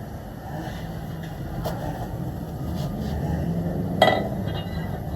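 Low rumble of a passing vehicle, growing slightly louder, with one sharp clink about four seconds in.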